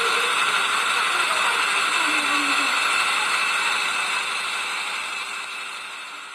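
Heavy rain pouring steadily, fading out over the last couple of seconds.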